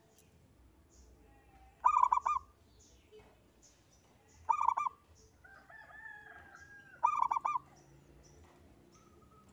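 Zebra dove (perkutut) cooing: three short song phrases, each a quick run of bubbling notes, about two and a half seconds apart. Faint high chirps from small birds sound in the background.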